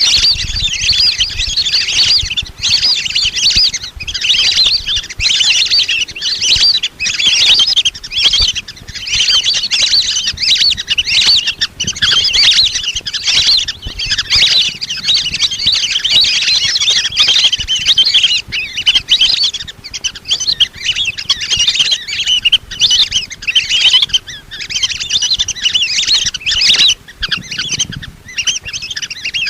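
A flock of lesser whistling ducks calling without pause: a dense, overlapping chatter of high whistles.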